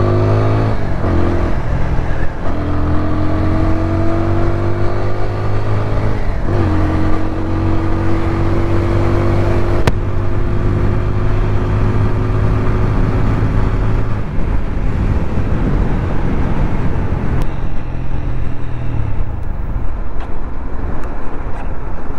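TVS Apache RTR 200's single-cylinder engine accelerating under way, its pitch climbing through the gears with shifts about one, two and six and a half seconds in, then a long slow rise in one gear. From about fourteen seconds in the engine note drops away as the throttle closes, leaving mostly wind and road noise near the end.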